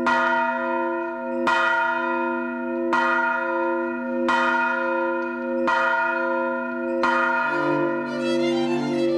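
A bell tolling, struck six times about every second and a half on the same note, each stroke ringing on into the next. Bowed strings come in underneath near the end.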